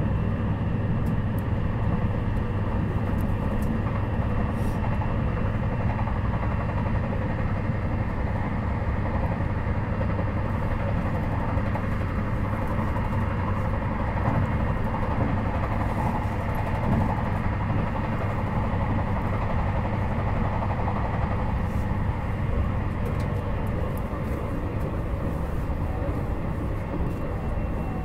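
Running noise inside a JR Hokkaido 721 series 4000-subseries electric motor car with Toshiba GTO inverter drive, under way between stations: a steady rumble of wheels on rail with a few constant tones over it.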